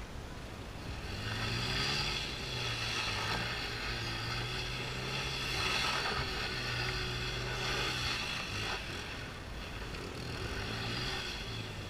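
Small single-cylinder four-stroke Honda Pop motorcycle held at steady revs while its rear tyre spins on loose dirt in a donut, with the hiss of spraying dirt over the engine. The engine eases off briefly about eight and a half seconds in, then picks up again.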